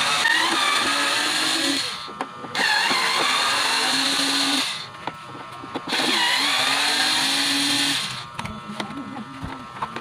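Small electric screwdriver running in three bursts of about two seconds each, unscrewing the screws of a plastic vacuum cleaner housing.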